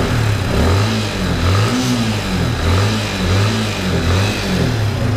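Yamaha Sniper 155's single-cylinder engine on its stock exhaust, revved in repeated blips about once a second, the pitch climbing and dropping back each time.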